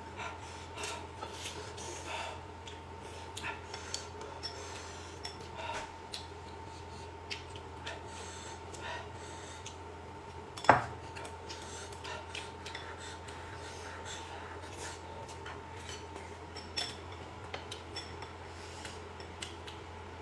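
Tableware clinking and scraping during a meal: scattered light clicks of utensils against dishes, with one sharp knock about eleven seconds in, over a faint steady hum.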